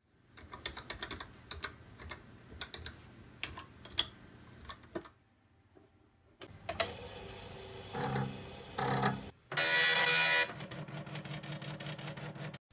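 Keys clicking as a command is typed on a computer keyboard for about five seconds. After a short pause a dot-matrix printer prints a line, its print head buzzing across the paper in passes, loudest for about a second near the end.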